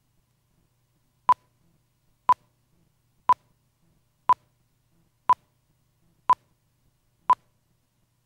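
Countdown beeps of a videotape leader: seven short beeps of the same pitch, one every second, timing the slate's countdown to the start of the programme.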